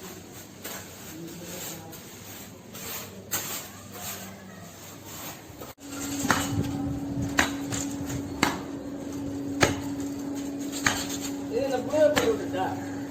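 Sharp knocks, about one a second, over a steady low hum, with faint voices near the end.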